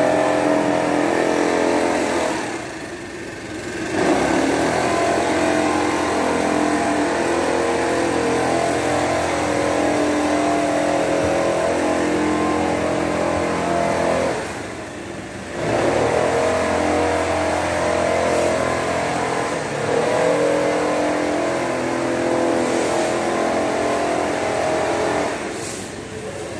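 Backpack mist blower's small petrol engine running at high throttle with a steady drone. It eases off briefly about three seconds in, again around the middle, and near the end, then comes back up each time.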